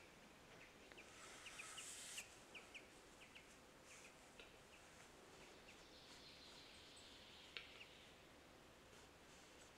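Male western capercaillie singing its display song, faintly: a run of dry clicks, with stretches of scraping hiss about a second in and again past the middle.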